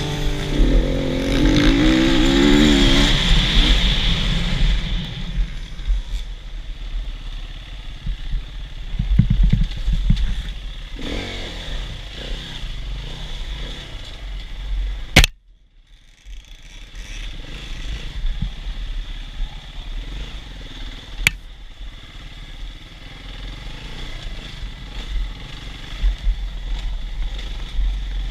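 Enduro motorcycle engine running and revving as the bike is ridden along a dirt trail, with clatter from the ride. The background music fades out over the first few seconds. A sharp click about fifteen seconds in is followed by a brief drop-out, and there is another click a few seconds later.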